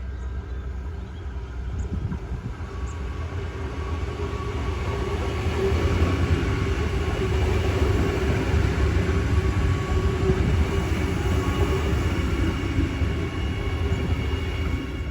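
Adelaide Metro 4000-class electric multiple unit on the move: a low rumble of wheels on rail with a steady electric motor hum. It grows louder to a peak through the middle and eases off near the end.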